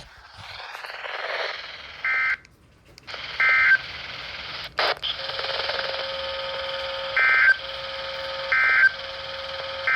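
Radio receiving an Emergency Alert System broadcast through static: short data-burst tones, two about a second apart and then three more in a row about a second apart. Under them runs a steady hiss, with a steady low tone joining about five seconds in.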